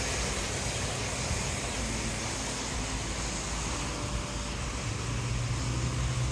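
Steady outdoor urban background noise, an even hiss with a low steady hum coming in about five seconds in.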